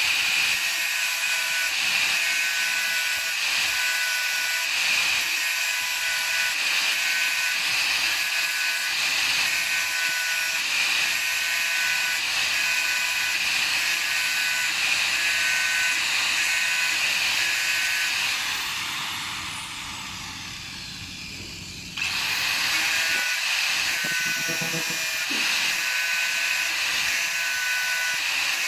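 Small electric power tool motor running at speed with a steady high whine. It winds down about two-thirds of the way through, then is switched back on and runs again.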